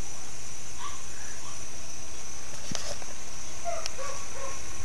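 Outdoor background of a steady high-pitched insect buzz, with a few faint short chirps and a couple of light clicks.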